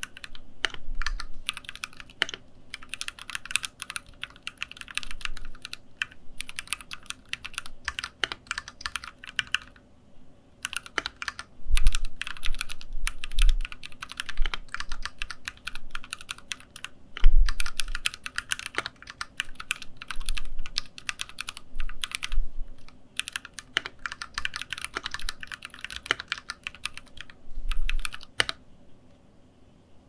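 Typing on a Keychron Q3 gasket-mounted aluminium mechanical keyboard with Gateron switches, in runs of quick keystrokes broken by short pauses and stopping shortly before the end. The sound is solid and firm, leaning toward a fairly high pitch rather than a deep, soft one.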